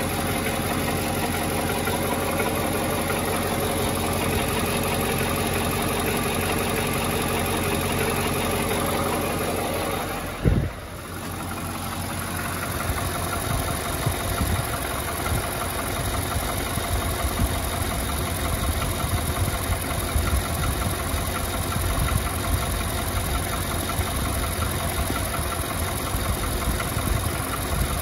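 2018 Nissan Titan V8 engine idling warm with the climate control, and so the AC compressor, switched off. Only a faint knock remains, which the owner suspects comes from a compressor clutch or accessory pulley rather than from inside the engine. About ten seconds in there is one sharp thump, and after it the idle sounds rougher, with a pulsing low rumble.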